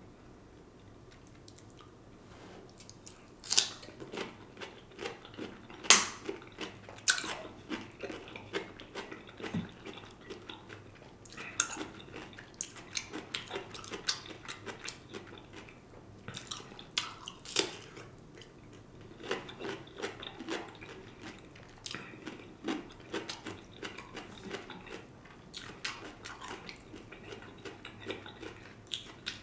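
A person biting and chewing smoked turkey leg meat close to the microphone, with wet mouth sounds and sharp little crackles, and now and then a click of cutlery or a plate.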